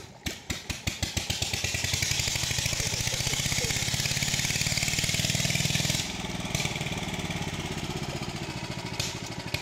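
A small engine running with a rapid, even beat. It builds up over the first two seconds, holds steady, then drops somewhat in level about six seconds in.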